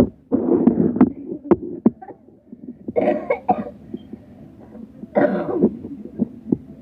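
A person coughing in three separate bouts, with light clicks and knocks in between.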